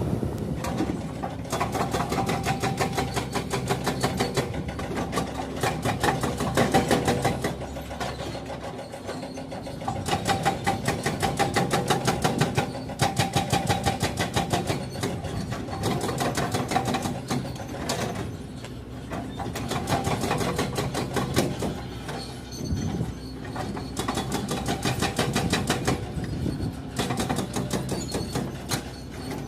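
Excavator's diesel engine running with a fast, even mechanical clatter, easing off briefly a few times.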